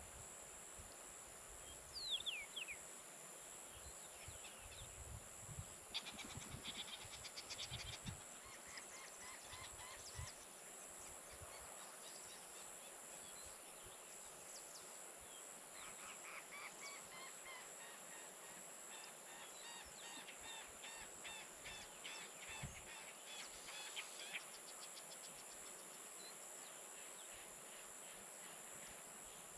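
Evening insect chorus in a steady high-pitched drone, with several birds calling over it: a falling whistle about two seconds in, a fast trill a few seconds later, and runs of repeated chirps in the second half.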